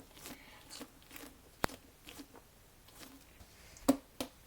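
Hands squeezing and handling a squishy Nee-Doh fidget ball, giving soft scattered crackles and a sharp click about a second and a half in, then two more clicks near the end.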